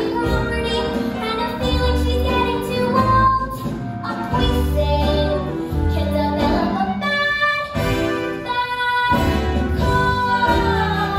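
A young girl singing solo over musical accompaniment, ending on a long held note that slides down near the end.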